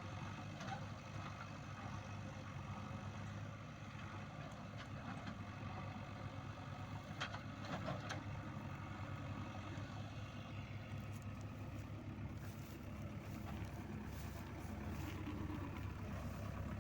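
Diesel engine of a JCB 3DX backhoe loader running steadily. Two sharp knocks come about halfway through, and light clicking and rattling follows in the last few seconds.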